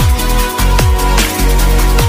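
Electronic background music with a deep sustained bass and booming kick drums that drop in pitch, over a crisp high percussion beat.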